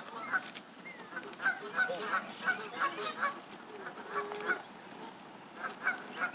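Geese honking: a quick run of short, repeated calls in the middle, and a few more near the end.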